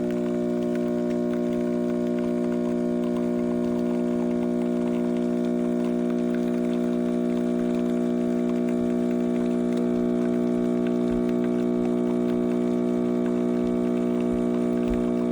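Espresso machine's pump running steadily with a constant buzzing hum while water runs through it.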